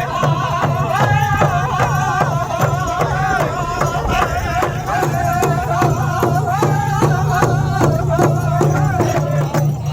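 Voices singing in high, wavering lines over a steady drumbeat.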